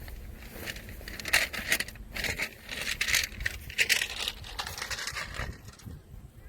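A run of irregular rustling, crinkling and clinking noises, densest in the middle and easing off near the end.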